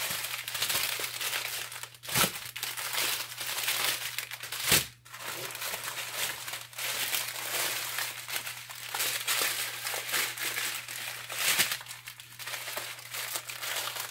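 Small plastic bags of diamond-painting drills crinkling as they are handled and laid out on a plastic-covered canvas, with a few sharper taps as bags are set down, about two, five and eleven seconds in.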